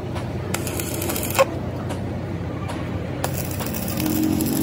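Stick welding on a cracked truck axle housing: the arc crackles in two spells, with a sharp click about a second and a half in. A steady low hum runs underneath and grows near the end.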